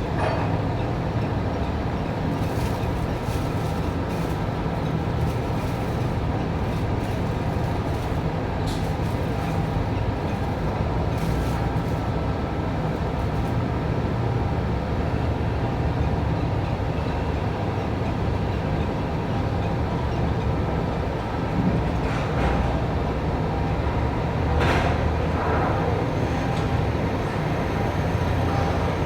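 Steady drone of heavy port machinery during container loading with a quayside container crane, with a few short knocks scattered through it.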